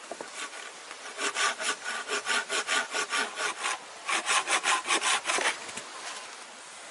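Hand saw cutting through a small log with quick, even back-and-forth strokes, about four or five a second, in two runs with a short break partway through.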